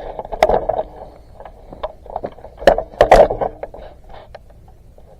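Several sharp knocks and thuds at uneven intervals, the loudest pair about three seconds in, then dying away.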